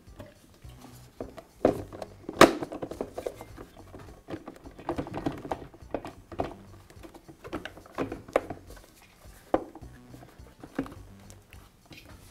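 Hard plastic air-compressor housing being shifted and pressed into place over the pump: a string of irregular plastic knocks, clunks and light scrapes, the loudest knock about two seconds in.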